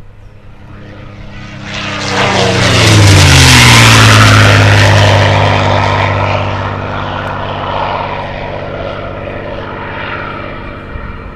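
Piston-engined propeller aircraft making a fast low pass. Its engine note swells to a peak about three seconds in, drops in pitch as it goes by, then slowly fades.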